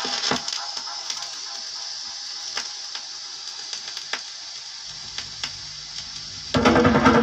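Crackle and hiss of a vinyl record played through a reggae sound system between tunes, with scattered clicks. A low hum comes in about five seconds in, and near the end the next reggae tune starts loud with heavy bass.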